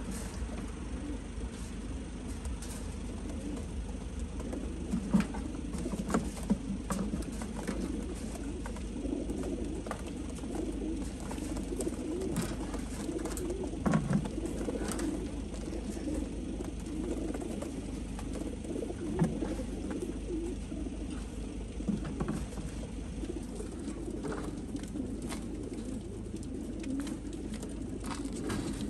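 Many racing pigeons cooing together inside the crates of a pigeon transport trailer, a continuous overlapping murmur, with scattered small clicks and knocks from the metal crates.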